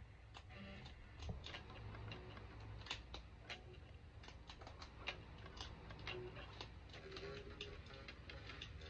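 Electric guitar picked very softly: mostly sharp clicks of the pick and strings, roughly twice a second, with a few faint short notes.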